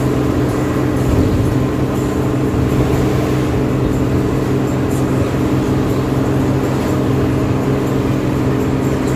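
Bus engine running steadily, a constant-pitch drone that holds even throughout.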